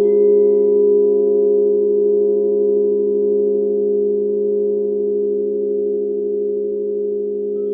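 Singing bowls ringing together in several steady, sustained tones with a slow wavering beat, fading slightly; a faint higher tone joins near the end.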